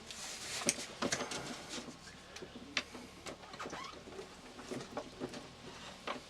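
Irregular clicks, taps and rustles of hands handling small objects, scattered unevenly, with no steady rhythm.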